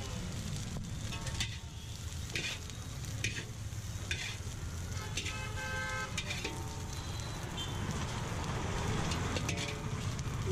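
Fried rice sizzling in a large iron wok while a metal spatula scrapes and clanks against the pan, in sharp strokes about once a second, over a steady low rumble.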